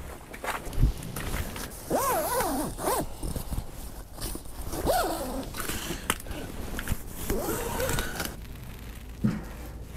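Handling noises from a small camping stove being worked on inside a tent: irregular scraping and rustling with a few sharp clicks, and several short squeaks that bend up and down in pitch.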